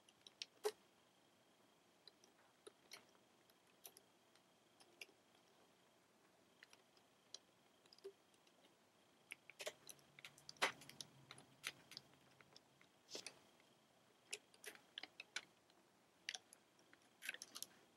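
Faint, scattered small clicks and snaps of a plastic hook working rubber bands over the plastic pegs of a rubber band bracelet loom, with the loudest clicks about ten seconds in.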